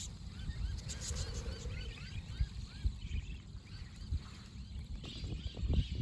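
A flock of wild budgerigars chirping in flight, with many short rising-and-falling chirps overlapping continuously. A steady low rumble runs underneath and grows louder near the end.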